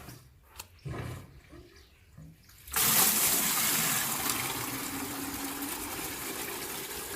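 Water suddenly gushing out of a water pipe about three seconds in, a loud, steady rush that eases only slightly.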